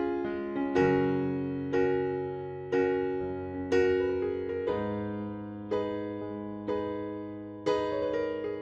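Background piano music: chords struck about once a second, each fading away before the next.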